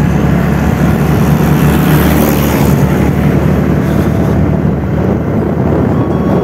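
Motorcycle engine running steadily while riding along, with wind noise on the microphone.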